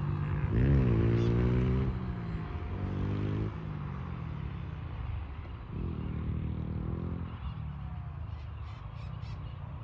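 F3A precision aerobatic RC model airplane's motor and propeller droning. The pitch rises sharply about half a second in and then falls away. It drops off around three and a half seconds and swells again a little past the middle.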